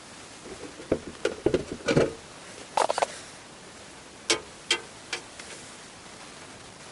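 Irregular knocks and clicks: a close cluster in the first half, then three separate sharp clicks a little after the middle.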